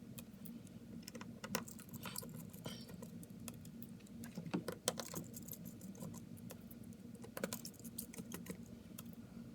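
Faint, irregular light clicks and taps of small hand tools and parts being handled on a smartphone during disassembly, over a low steady hum.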